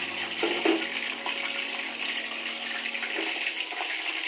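Steady sizzling hiss of chicken frying in hot oil in a pan, alongside a pot of coconut-milk stew at a boil.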